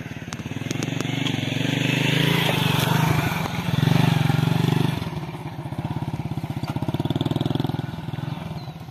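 A small engine running close by with a steady chugging beat. It swells louder from about a second in to a peak near four seconds, drops back, and swells again near seven seconds.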